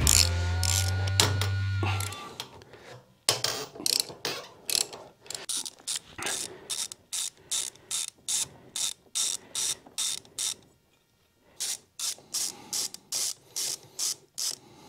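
Ratchet wrench clicking in repeated strokes, about two a second, with a brief pause about two-thirds of the way through, as the 10 mm cylinder nuts on a Vespa ET2 scooter engine are undone. A steady low hum fills the first two seconds.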